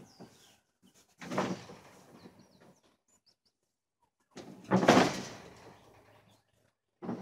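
Hay bales being thrown down and stacked: three heavy thumps, each trailing off in a rustle of hay, the loudest about five seconds in. A bird chirps faintly between the first two.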